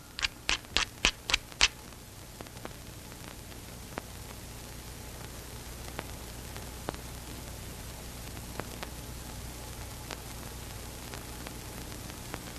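A quick run of about seven sharp clicks or knocks, roughly four a second, over the first couple of seconds, then a long stretch of steady soundtrack hiss with a low hum and scattered faint ticks.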